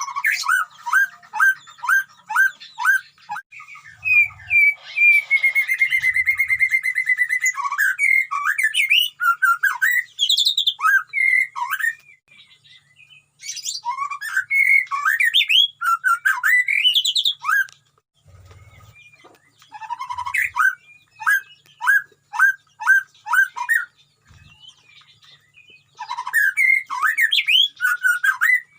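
White-rumped shama (murai batu) singing loudly: runs of quick, evenly spaced down-slurred whistles, a long held whistle, and varied fluty phrases, broken by short pauses.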